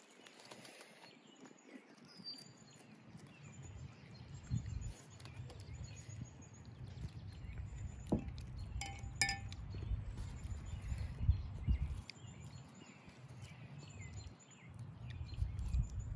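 Wind buffeting the microphone in uneven low gusts, with faint bird chirps above it and one light clink of a utensil about nine seconds in.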